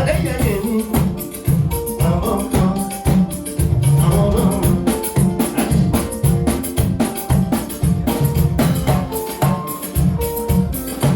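Band music with a busy, steady beat: drums and shaker or tambourine-type percussion over strong bass pulses and some held melodic notes.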